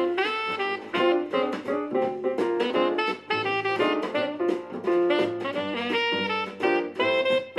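Background jazz music: a saxophone melody over a light drum beat.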